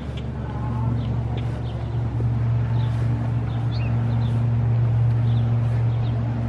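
A steady low hum, with faint thin tones above it, under scattered short bird chirps.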